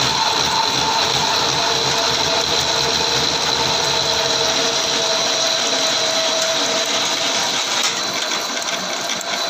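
Metal lathe running with a three-groove V-belt pulley spinning in its chuck as it is bored: a steady mechanical whir with a steady high whine over it, easing slightly near the end.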